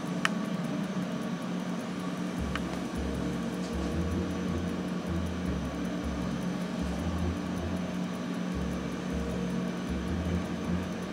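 Steady mechanical hum of room equipment, like an air conditioner or fan. From about two and a half seconds in, a low throbbing rumble steps between two pitches. A couple of faint clicks come near the start.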